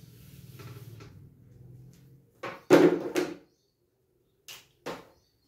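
A few sudden knocks and bumps, like objects being handled or a door. The loudest cluster comes about two and a half seconds in, with two short, quieter knocks near the end and a faint low hum before them.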